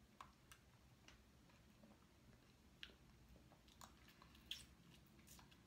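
Faint close-up mouth sounds of sipping a thick smoothie through a straw and chewing, heard as scattered small wet clicks at uneven intervals.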